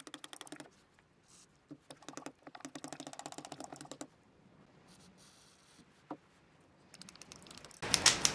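Rapid plastic clicking of a small power-tool trigger switch being snapped back and forth by hand, in runs of a second or two, to work freshly sprayed contact cleaner into its corroded contacts. Near the end a loud rush of storm wind comes up.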